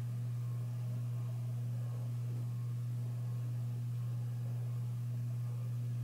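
Beverly Hills Fan Co. Trout ceiling fan running, its motor giving off a steady low hum.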